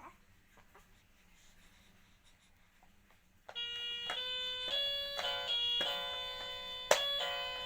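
Near silence for about three and a half seconds, then an electronic tune starts: a run of bright beeping notes changing pitch, like a musical toy or chime.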